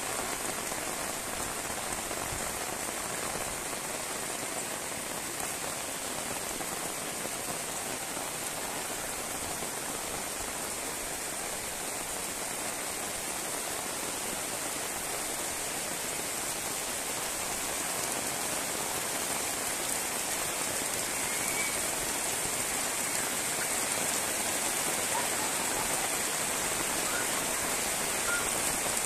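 Heavy rain falling steadily on the ground and foliage, an even hiss that grows a little louder toward the end.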